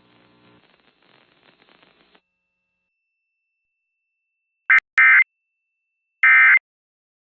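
Emergency Alert System end-of-message signal: short bursts of warbling digital data tone, about a second and a half apart, the first broken by two sharp clicks. Two bursts fall about five and six seconds in, after a few seconds of near silence.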